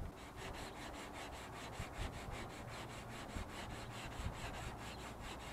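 Sandpaper being rubbed by hand over hardened body filler on a car fender, with the coarse 80-grit paper used for shaping the filler. Quick, even back-and-forth strokes, about four or five a second, stopping at the end.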